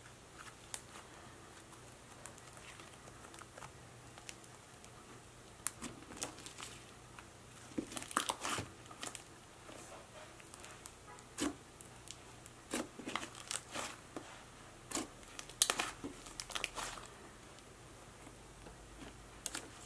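Butter slime with foam beads being stretched, swirled and pressed flat by hand, giving irregular soft crackles and little pops that come in clusters with quiet stretches between.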